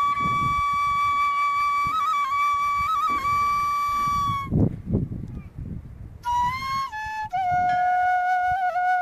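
Background music: a solo flute holding long notes decorated with quick trills. It breaks off about halfway, then a second, lower phrase steps down in pitch. A faint low rumble runs underneath.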